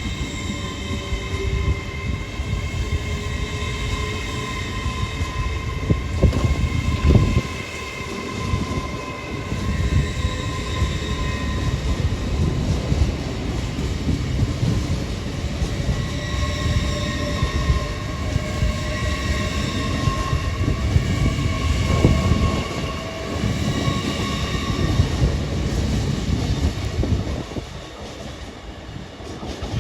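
GWR Class 802 bi-mode train pulling away under electric power: several steady whining tones that shift in pitch as it gathers speed, over a low rumble of wheels on track that swells twice. It drops away near the end.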